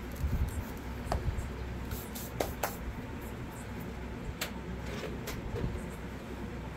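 Steady low room hum with a handful of light clicks and taps scattered through it, the sound of small objects being handled.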